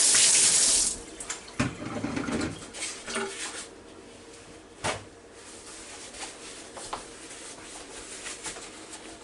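Water splashing into a stainless-steel kitchen sink as a bowl of rinse water is emptied. It is loud for about a second, then a few dull thuds and knocks follow.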